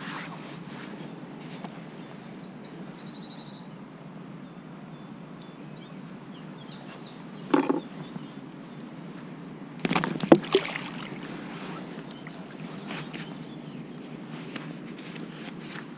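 Outdoor lakeside background noise with a small bird singing briefly a few seconds in. Handling knocks and rustles as a small pike is held in gloved hands over wooden decking: one knock about halfway through and a louder cluster about ten seconds in.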